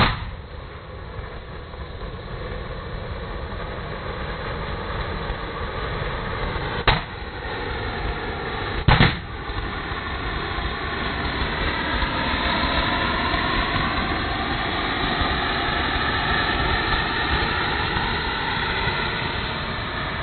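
Hand-held spark-fountain firework hissing steadily as it jets sparks, the hiss taking on a wavering whistle in the second half. A balloon bursts with a sharp bang at the start, and two more sharp bangs come about seven and nine seconds in.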